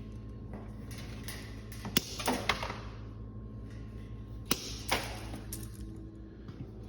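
Several sharp clicks and snaps of hand tools working on thermostat control wire, in two clusters about two and four and a half seconds in, over a steady low electrical hum.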